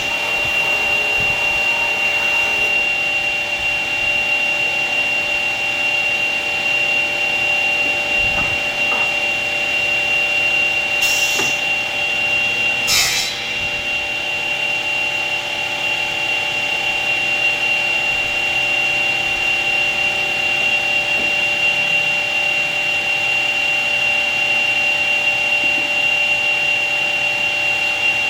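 Four-motor combination woodworking machine running steadily with a high whine while cutting wood, with two short bursts of hiss a little before halfway through.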